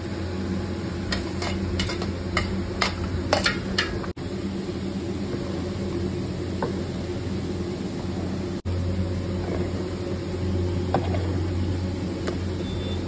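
A metal ladle stirring minced goat meat and liver in a large aluminium pot of wet masala, with a run of sharp clanks of metal on the pot in the first four seconds and a few softer knocks later, over a steady low hum.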